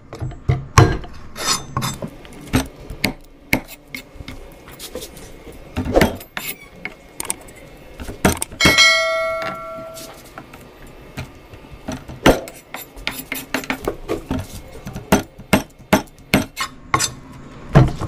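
Knife tapping and scraping against a cutting board as a milkfish (bangus) is cleaned, in irregular sharp clicks throughout. About nine seconds in, a piece of metal rings with a clear tone for about a second and a half.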